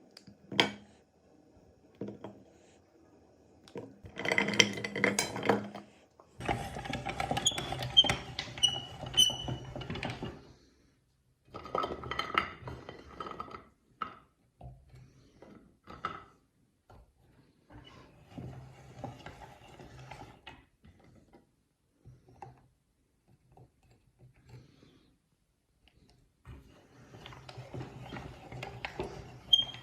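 Meat grinder grinding bars of soap in stop-start spells of a few seconds each, with grinding, clattering and clinking, some spells carrying a low steady hum, and sharp clicks in between.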